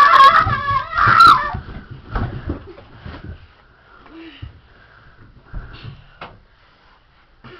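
A child shrieking and squealing loudly for about the first second and a half. Then comes a series of dull thumps as kids slide and bump down carpeted stairs, followed by quieter scuffs and knocks.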